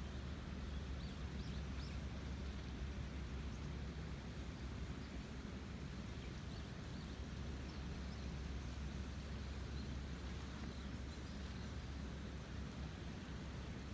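A river swollen with rainy-season water, rushing in a steady, even rumble that is heaviest in the low range. Faint short high chirps from small birds come through now and then.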